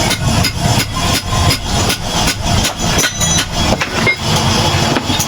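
Repeated hammer strikes on metal, about three a second, over a steady low rumble like an engine running.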